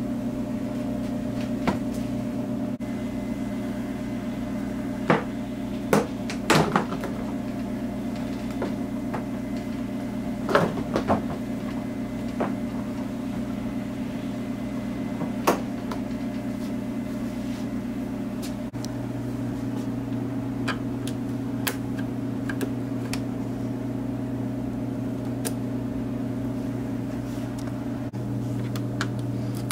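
Plastic retaining clips of a car's front bumper cover clicking and snapping as the cover is pulled away from the fender and headlight, a string of sharp snaps mostly in the first half, over a steady electrical hum.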